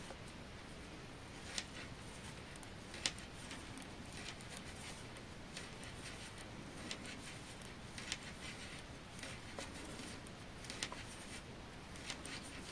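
Faint clicks of two knitting needles as knit stitches are worked, one light click about every second or so over a quiet room hiss.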